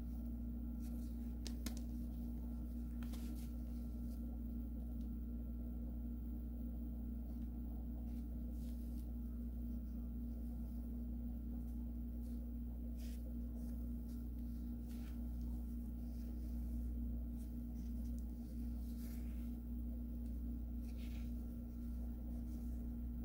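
A steady low hum with scattered light clicks and rustles of handling.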